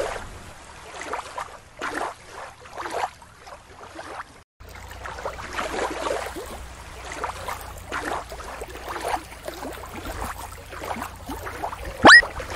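Shallow water sloshing and lapping in irregular splashes, with wind rumbling on the microphone from about four and a half seconds in. Near the end comes a short, loud rising whistle-like sweep.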